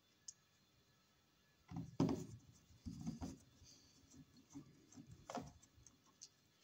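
Handling noises as a cover is fitted back onto an electrical box: a light click, then several knocks and scrapes, the loudest about two seconds in.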